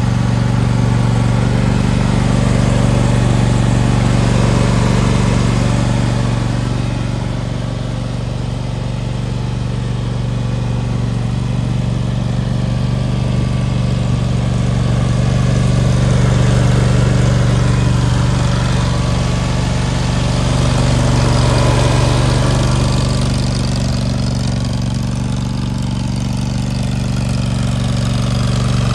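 Kawasaki FX1000V V-twin engine of a Cub Cadet zero-turn mower running steadily at a constant speed, with a low, even drone.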